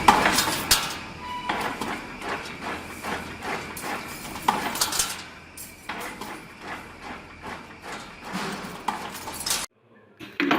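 Irregular knocks and metallic clinks of hard objects being worked, over a faint steady high tone. The sound cuts off abruptly near the end.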